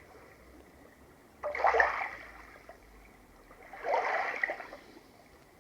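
DolPillow white noise machine playing its second ocean-wave sound through its built-in speaker: two swells of washing surf about two and a half seconds apart, with a faint hiss between them.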